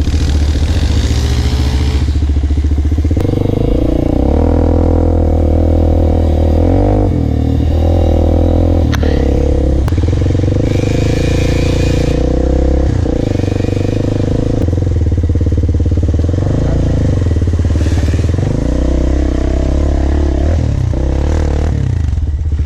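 Small off-road bike engine running close by, its pitch rising and falling repeatedly as the throttle is opened and eased while riding over rough ground.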